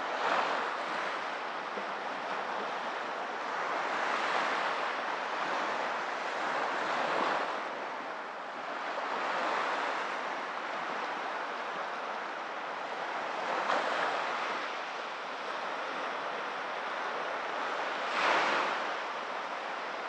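Small Black Sea waves breaking and washing up a sandy beach, the surf swelling and fading every few seconds, strongest near the end.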